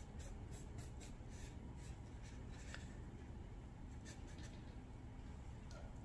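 Small paintbrush mixing paint on a foam palette tray: faint soft scratchy strokes and light taps, over a low steady room hum.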